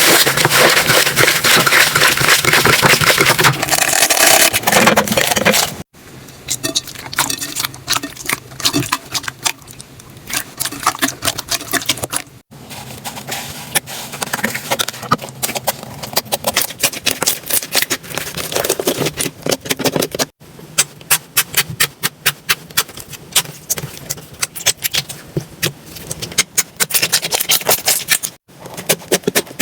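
Slime being squished and poked by hand, making a dense stream of quick sticky clicks and pops. It comes in several short clips joined by abrupt cuts, about every six to eight seconds.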